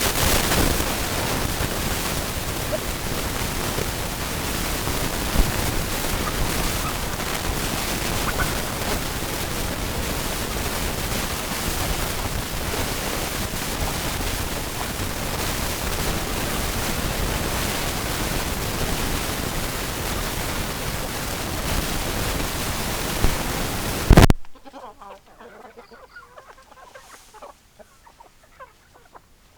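A loud, even rushing noise that cuts off suddenly about four-fifths of the way through, leaving faint clucking of chickens.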